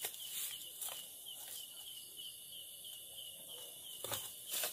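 Night insects chirping steadily in a fast even rhythm, with a few short knocks or rustles, the loudest near the end.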